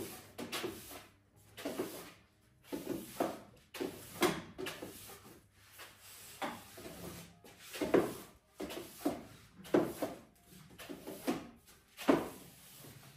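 Broom bristles swishing across a wooden floor in short, irregular strokes, about one or two a second, with a few louder knocks as the long-handled plastic dustpan is moved along.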